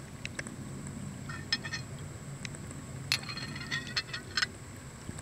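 Glazed ceramic pieces of a pet drinking fountain clinking together as a hand shifts the loose ceramic leaf against the spout: a short run of light, ringing clinks about a second in and a longer run from about three seconds in, over a steady low hum.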